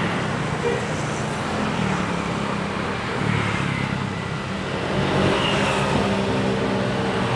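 Road traffic noise: motor vehicles running past, with a steady low engine hum.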